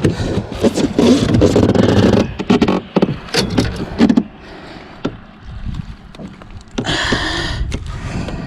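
A striped bass being landed into a small boat: irregular scraping and knocking against the hull with a few sharp clicks, busiest in the first half, then quieter before another flurry near the end.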